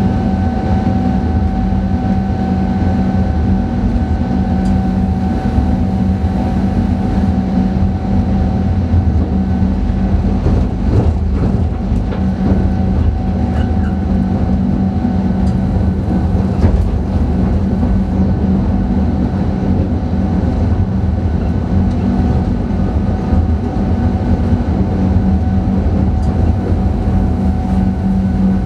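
Electric train heard from inside the driver's cab while running: a steady rumble of wheels on rail under a constant electrical hum and whine. A few faint clicks come near the middle.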